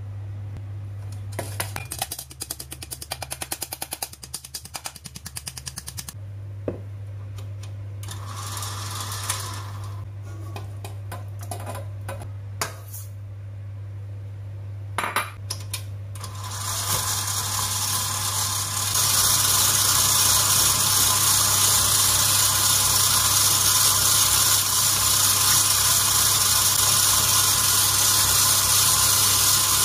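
Tilt-head stand mixer with a flat beater switched on about two-thirds of the way through and running steadily, beating eggs and brown sugar in a stainless steel bowl. Earlier, a mesh sieve of flour is tapped rapidly for a few seconds, with a few separate clicks after.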